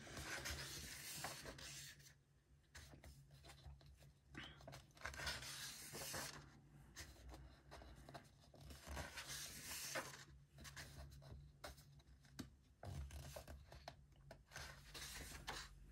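Paper pages of a large colouring book being turned and handled: faint, irregular rustles and swishes of paper.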